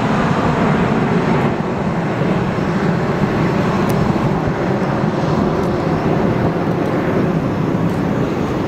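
Twin-engine jet airliner climbing out just after take-off, its engines making a steady, loud rumble.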